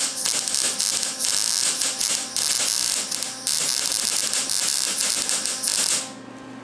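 MIG welder arc crackling and sizzling as a bead is laid along a seam, in three stretches with short breaks a little over two seconds and about three and a half seconds in. It stops about six seconds in.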